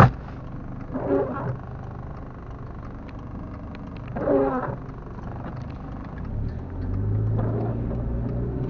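A car running on the road, heard from inside the cabin: a steady low drone, with the engine hum growing stronger about seven seconds in as the car picks up speed. A sharp click comes right at the start.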